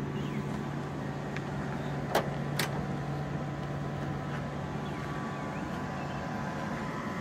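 Steady low hum over an even outdoor background noise, with two sharp clicks close together about two seconds in.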